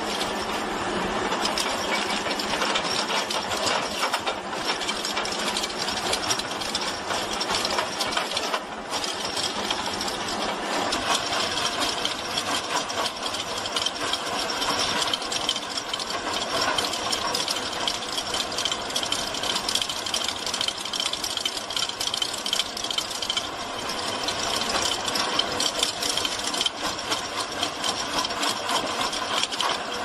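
Forestry mulcher head grinding through brush and small trees: a steady, dense rattling clatter of cutter teeth tearing into wood, with chips and debris flying.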